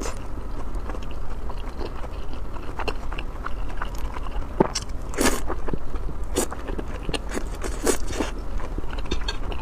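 Close-miked eating: a person chewing and biting food, with irregular sharp mouth clicks and crunchy, crackly strokes, the loudest about five, six and a half and eight seconds in, over a steady low hum.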